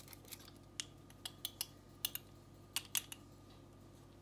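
Faint, irregular light clicks and taps, about eight of them, from a metal spoon as paprika is added to crab meat in a glass mixing bowl.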